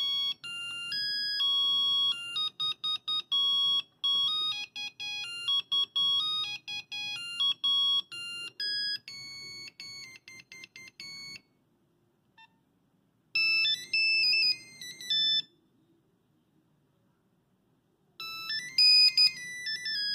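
Nokia 5110 mobile phone playing its monophonic ringtones through its small speaker as quick, beeping electronic notes. One melody plays for about eleven seconds and stops. After a pause a short tune plays twice, the second time starting near the end.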